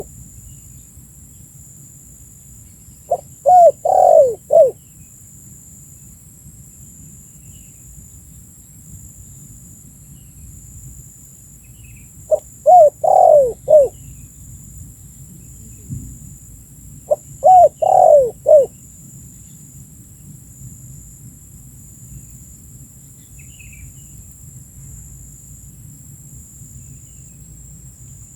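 Spotted dove (tekukur) cooing: three phrases of four or five quick coos each, about 3, 12 and 17 seconds in. A steady high-pitched hiss runs underneath.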